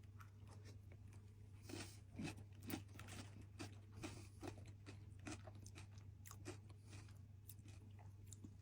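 Faint chewing: a person eating a snack, with irregular small crunches and crackles, over a low steady hum.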